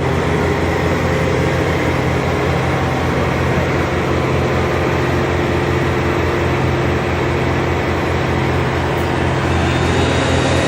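Heavy diesel engine of construction machinery running steadily, with a constant low rumble and no pounding.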